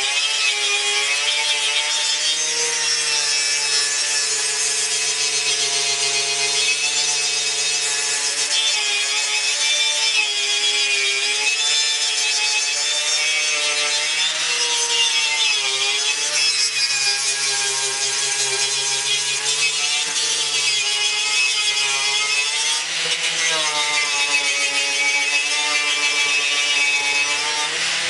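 Electric angle grinder with a wire wheel scrubbing paint and rust off the steel grille shell of a 1953 Ford F100 truck: a steady motor whine whose pitch wavers and dips now and then, over the hiss of the wire bristles on the metal.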